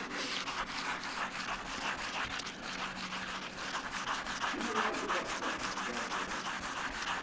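Wet sandpaper rubbed by hand over a truck's fresh black clear coat in a steady run of short strokes, sanding down the high spots of orange peel.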